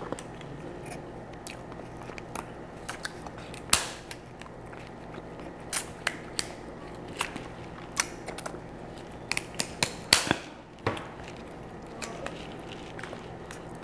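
Kitchen shears snipping through boiled lobster claw shell, with the shell cracking as it is pulled apart by hand: irregular sharp snaps and cracks, the loudest about four, six, eight and ten seconds in.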